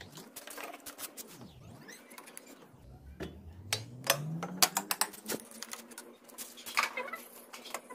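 Scattered metal clicks and clinks of a wrench and bolt being worked into a motorcycle's rear shock lowering-kit mount. A low hum rises in pitch about halfway through and then holds steady underneath.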